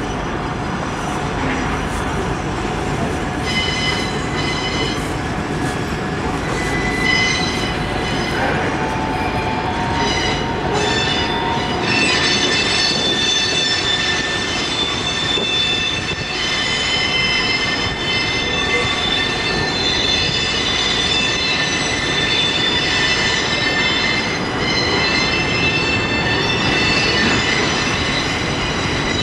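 Freight cars of a Norfolk Southern train rolling past, steel wheels squealing on the rails in several steady high tones over the constant rumble of the cars.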